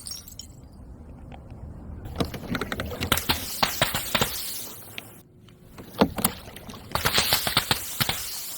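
Balloons popping: rapid clusters of small sharp pops and crackles, with one louder single pop about six seconds in.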